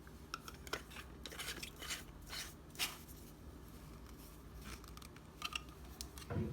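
Small plastic humidifier being handled as its cover is fitted back on: scattered light plastic clicks and short scrapes, with a heavier thump near the end.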